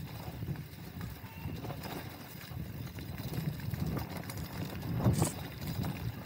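Mountain bike riding over a rough dirt trail: an uneven rumble from tyres and frame with irregular knocks and rattles from the bumps, one harder knock about five seconds in.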